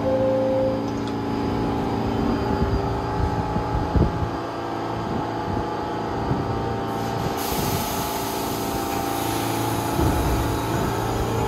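New York City subway train with a steady electric hum, a knock about four seconds in, and a hiss of air starting a little past seven seconds and lasting several seconds.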